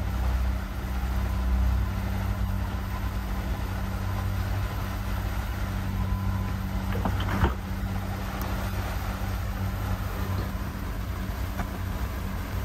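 Suzuki 250 outboard motor running steadily as the boat cruises, a low even hum, with a single sharp knock about seven seconds in.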